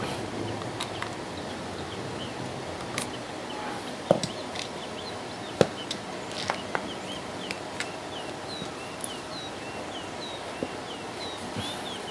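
Scattered small plastic clicks and taps as a standing fan's speed-switch housing is unscrewed and pulled open, with two louder knocks about four and five and a half seconds in.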